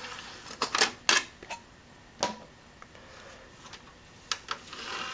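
Clicks and clatter of a DVD drive as the tray is ejected and the disc taken out, a few sharp clicks in quick succession about a second in, more near the end, then a brief stretch of mechanical noise as the tray moves.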